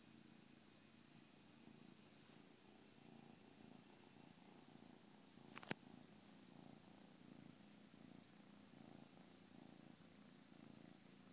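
Tabby kitten purring faintly and steadily. About halfway through there is one sharp click.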